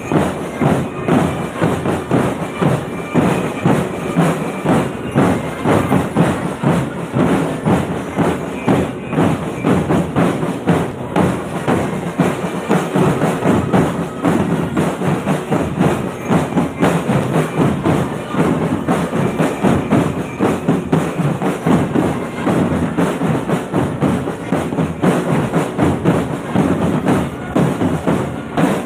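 Marching drum band playing a fast, steady drum cadence on bass drums and snare drums, struck together in dense rhythm.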